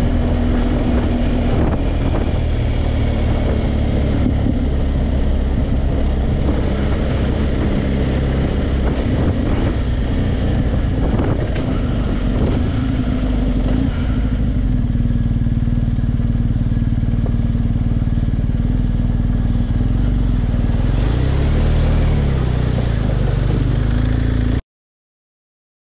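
BMW R1250GS Adventure's boxer-twin engine running steadily as the bike rolls along a dirt track, with occasional knocks. Near the end the engine note rises and falls briefly, then the sound cuts off abruptly.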